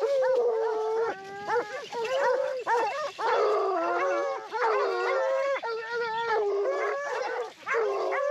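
A pack of Porcelaine hounds baying, several voices overlapping almost without a break, as they give tongue on a wild boar trail.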